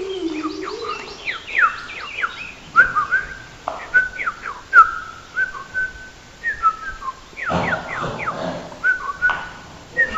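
Bird-like whistled chirps, quick falling sweeps and short held high notes repeated over and over, with a brief burst of noise about three-quarters of the way through.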